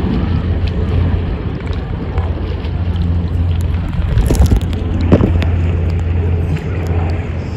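Heavy wind rumble on the microphone over sloshing sea water, with a few sharp knocks about four to five seconds in.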